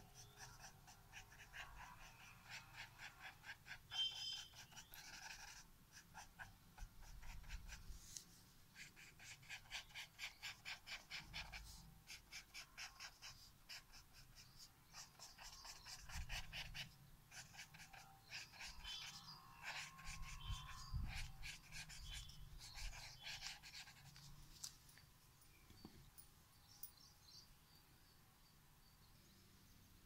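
Faint, rhythmic rubbing of a tool on drawing paper as pencil shading is blended, in runs of two or three strokes a second, dying away a few seconds before the end.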